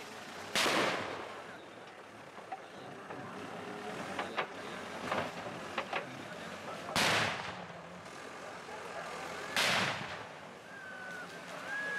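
Firecrackers exploding: three loud bangs, each with a long fading tail, about half a second, seven and nine and a half seconds in, with a few smaller sharp cracks in between.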